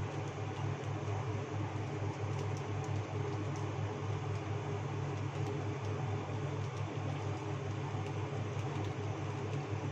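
Steady low mechanical hum, like a motor or fan running, with an even hiss over it.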